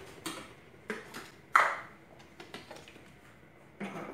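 A few light clinks and knocks of metal kitchenware, with one louder ringing ping about a second and a half in.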